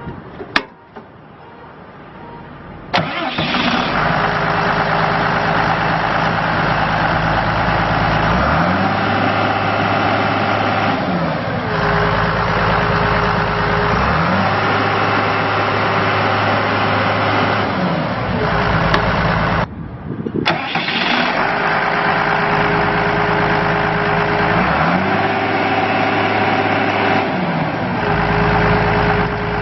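Cummins diesel engine of a Blaw-Knox PF-5510 asphalt paver starting suddenly about three seconds in, then running, its speed dropping and rising between two settings several times. The sound drops out for a moment about two-thirds of the way through.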